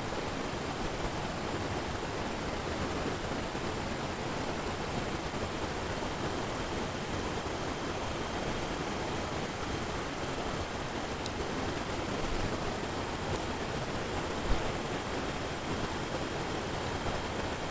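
Steady rush of fast-flowing stream water running over rapids, with one short knock about fourteen seconds in.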